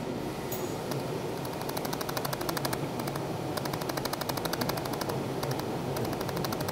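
Pulsed laser welder firing a rapid, even run of sharp ticks, several a second, as it lays filler wire into a steel mold engraving, starting about a second and a half in and pausing briefly twice. A steady hum runs underneath.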